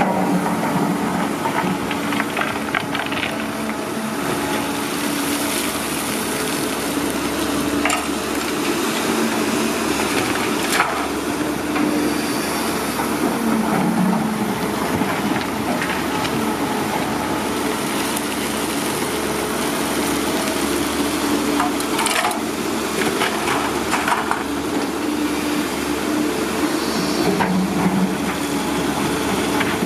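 Heavy diesel machinery running steadily, with continuous crunching and scraping and a few sharp knocks scattered through it.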